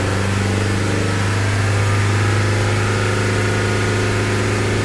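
Toyota Fortuner's diesel engine running steadily just above idle. The running is smooth with no knock, as the engine's knocking and misfire have been repaired.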